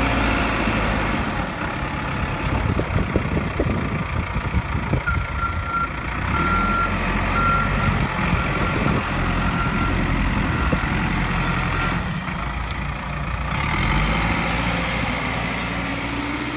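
2006 CAT 420E backhoe loader's diesel engine running, its speed shifting up and down a few times. A reversing alarm beeps repeatedly for several seconds in the middle, with scattered knocks and clanks earlier on.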